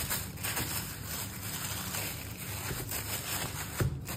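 Thin plastic carrier bag rustling and crinkling as it is handled and pulled open, with a single thump near the end.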